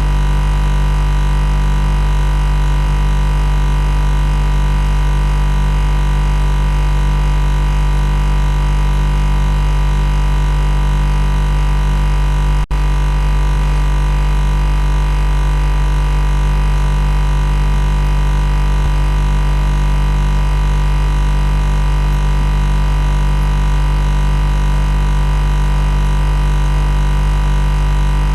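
Loud, steady machine buzz: a low electrical hum with a dense stack of overtones that holds unchanged, broken only by a momentary dropout about halfway through.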